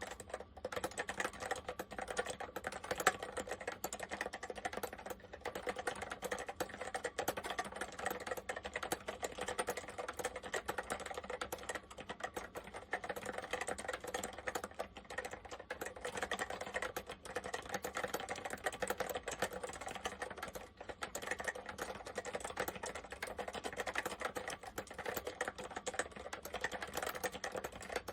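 Fast, continuous typing on an Apple M0110A Macintosh Plus keyboard with Mitsumi Standard Mechanical switches: a dense stream of key clicks and clacks.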